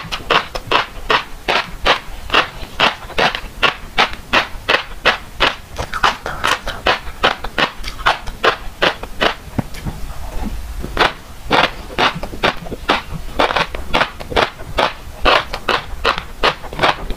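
Fish roe being chewed close to a lapel microphone, the small eggs popping in the mouth as a steady run of crisp clicks, about three to four a second, with a pause of about a second past the middle.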